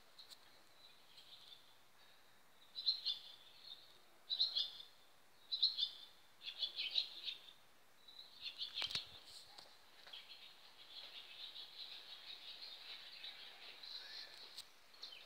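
Small birds chirping high and quick in about five short bursts over several seconds, then a steadier run of twittering through the last few seconds. A single knock about nine seconds in.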